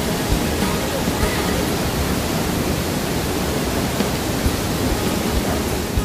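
Steady roar of Haew Narok waterfall's 50-metre first tier in full rainy-season flow, a dense, even rush of falling water, with occasional low bumps that are likely wind on the microphone.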